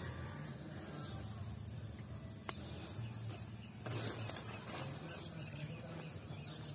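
Quiet outdoor field ambience: a steady high insect drone with faint rustling. There is a light tick about two and a half seconds in and a brief rustle about four seconds in.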